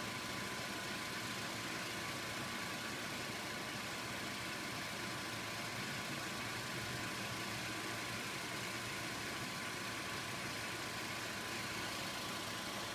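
2012 Honda Civic idling while stationary after a cold start with the air conditioning off, with a steady, thin whistle from the right front wheel area over an even hiss. It is an abnormal noise that comes and goes after a few minutes of running, and its cause is unknown.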